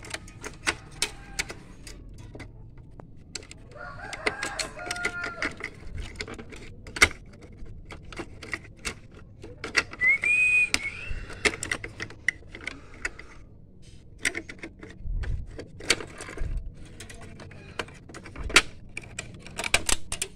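Irregular plastic clicks, taps and snaps as the inside of an Epson inkjet printer is taken apart by hand, its clips and gear parts being worked loose. A bird calls twice in the background, about four seconds in and again near ten seconds.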